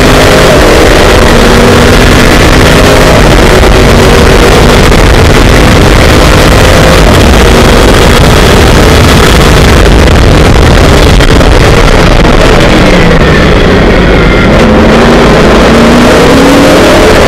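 Onboard sound of a Formula Le Mans prototype's Chevrolet V8 running hard, loud and saturated, with wind rush over the cockpit. About thirteen seconds in the engine note drops as the driver lifts off, then climbs again as the car accelerates.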